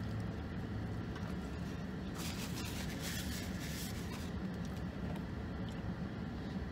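A person chewing a mouthful of food over the steady low hum of a car's cabin, with about two seconds of rustling hiss from roughly two seconds in.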